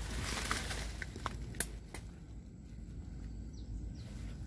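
Quiet outdoor background: a brief rustling hiss with a few sharp clicks in the first two seconds, the loudest about a second and a half in, then only faint background noise.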